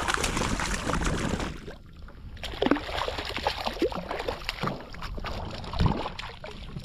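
Small redfish thrashing at the surface beside a kayak as it is landed by hand, water splashing and spattering. There is a brief lull about two seconds in, then more splashes and knocks.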